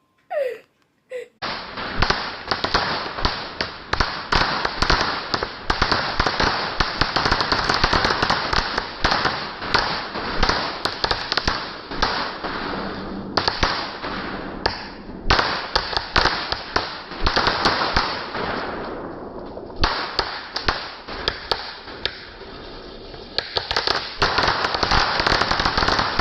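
Fireworks going off in a dense, continuous string of rapid crackling pops, starting about a second and a half in and easing briefly a couple of times.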